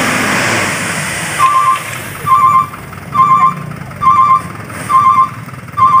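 Diesel dump truck running with its bed raised, its load of soil sliding out with a rushing noise that is loudest in the first second or so. From about a second and a half in, the truck's electronic warning beeper sounds a short beep about once a second.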